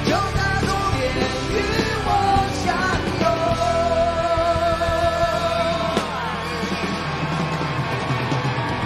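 Live rock band with a male lead vocal: the singer sings a phrase, then holds one long high note for about three seconds over drums and electric guitars, and the band then sustains a chord near the end.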